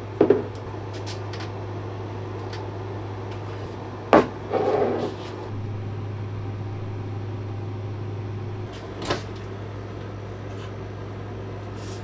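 Kitchen handling sounds with a glass jar of instant coffee on the countertop: a couple of clicks at the start, a sharp knock about four seconds in followed by about a second of rattling and scraping, and another click near nine seconds, over a steady low hum.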